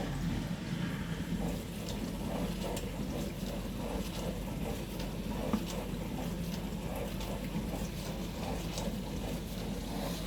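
Dishwasher running a wash: a steady pump hum with water splashing and sloshing inside the tub.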